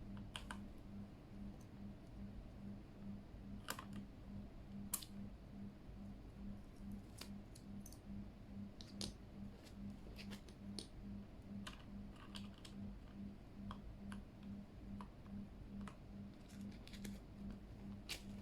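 Scattered sharp plastic clicks and taps of hands working on a mechanical keyboard, irregular and a few seconds apart, over a low hum that pulses about twice a second.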